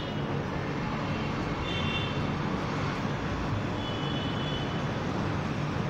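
Steady background rumble and hiss, with two short high-pitched tones, one about two seconds in and one about four seconds in.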